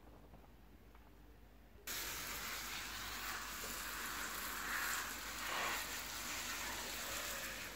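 Hose watering wand with a metal shower-head rose spraying water onto potted seedlings: a steady hiss of spray that starts suddenly about two seconds in.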